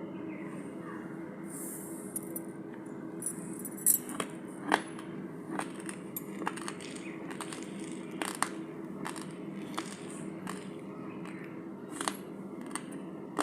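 Raw Nattu Ponni rice grains crunching as they are chewed: irregular sharp cracks, a few each second, starting about two seconds in, over a steady low hum.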